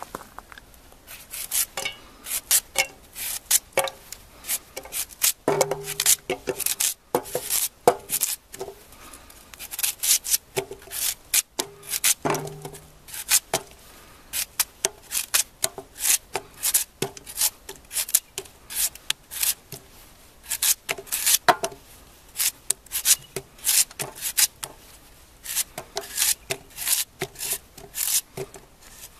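Knife shaving pieces off a raw white radish held in the hand, a quick irregular series of crisp cuts as the slices drop into the pot.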